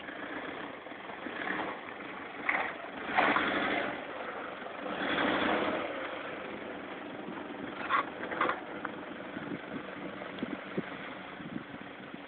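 Toyota Land Cruiser 120's engine running as the SUV moves slowly over the ground, with several louder rushes of noise over it in the first half and two short sharp sounds about eight seconds in.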